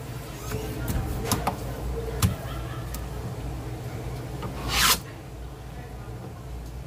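A halibut fillet being handled with a knife on a plastic cutting board: a few light taps and clicks, then a short scraping rub about five seconds in, over a steady low hum.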